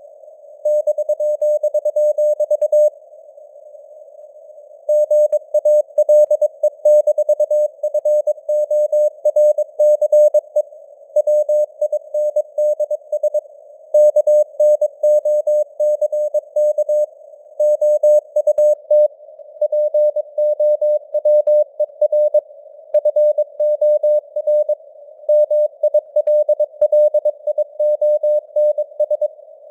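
Morse code (CW) sent at 22 words per minute: a tone of about 600 Hz keyed on and off in dots and dashes, over faint simulated radio noise with slowly varying signal strength (QSB fading). The keying pauses for about two seconds a few seconds in.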